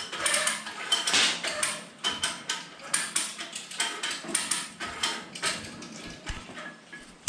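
Rapid, irregular metallic clicking and rattling as the steel lifting cable's threaded end and its nut and washer are fitted at the top of a four-post car lift post; the clicks thin out toward the end.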